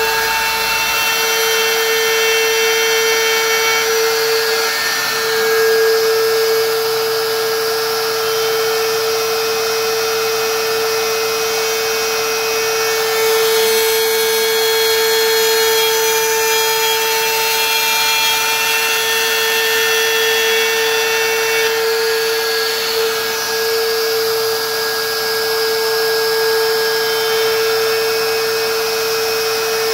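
DeWalt plunge router running at speed with a steady whine, its bit cutting grooves in a wooden board; the loudness swells a little now and then as the cut loads the bit.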